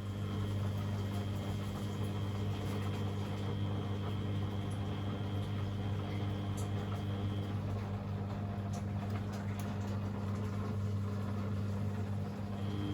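Beko WMD 46160 washing machine running: a steady hum that sets in just before and holds throughout. A faint high tone drops out about halfway and comes back near the end.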